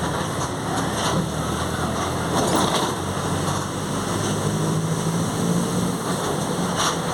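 Mercedes-Benz OF 1722 M bus under way, heard from on board: the drivetrain runs steadily and the rear differential growls, with a few short knocks and rattles from the body.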